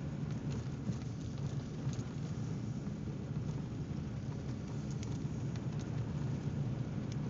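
Car driving over a snow-covered road, heard inside the cabin: a steady low rumble of tyres and engine, with faint scattered clicks.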